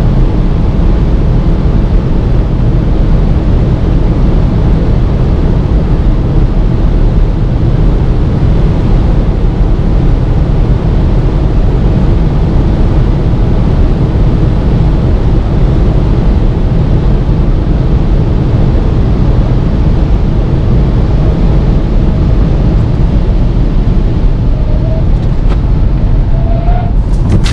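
Loud steady wind, tyre and engine noise inside the cabin of a 2016 Seat Leon Cupra with an ABT-tuned 2.0 turbo four-cylinder at about 260 km/h on the Autobahn. Near the end, as the car slows, two short rising tones sound.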